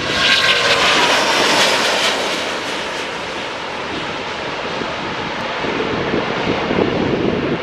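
An Airbus A350-900's Rolls-Royce Trent XWB turbofans at takeoff thrust as the jet lifts off and climbs past. A loud jet roar with a high whine that falls in pitch as it goes by, loudest in the first two seconds, then a steadier roar. Wind rumbles on the microphone in the last couple of seconds.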